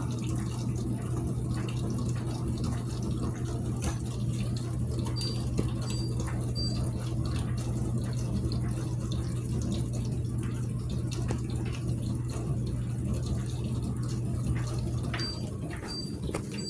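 Dishwasher running: a steady motor hum with water swishing inside the tub. A few short, faint high beeps sound about five seconds in and again near the end.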